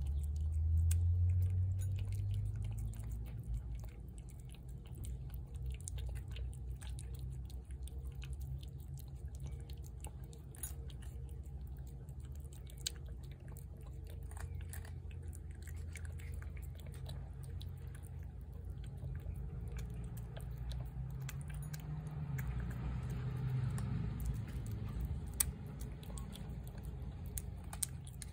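A cat eating wet food from a plate close up: wet chewing with many small clicks and smacks. A low rumble runs underneath, loudest in the first few seconds.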